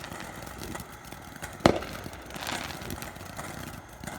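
Fireworks: one sharp bang about halfway through, followed by a fainter crackle.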